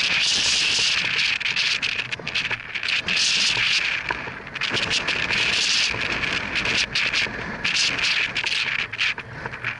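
Loud rustling, crackling noise on the microphone: a hiss that swells and dips several times, peppered with sharp crackles, fading near the end.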